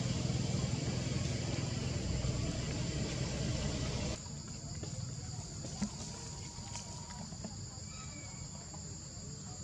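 Outdoor ambience with a steady high insect drone of crickets or cicadas. For the first four seconds a broad rushing noise lies over it, then it cuts off abruptly, leaving the insects and a single soft knock about two seconds later.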